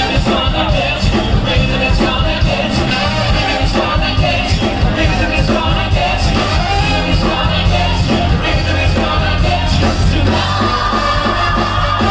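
Loud upbeat show music with singing and a steady beat, played over a theatre sound system.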